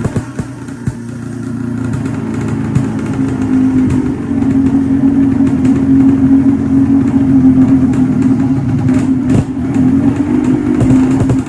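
Yamaha RD 135 single-cylinder two-stroke engine, home-converted to crankcase reed induction with an enlarged bore, running on its first start-up through an expansion-chamber exhaust. The revs come up about three to four seconds in and are held higher, with small dips.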